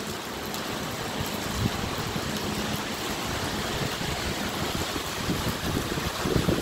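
Steady rain falling on wet pavement, a continuous hiss, with wind gusting on the microphone, strongest near the end.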